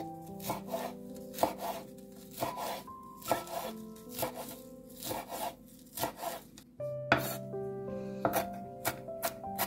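Chef's knife chopping fresh parsley on a wooden cutting board: a steady run of crisp cuts, two to three a second, over background music.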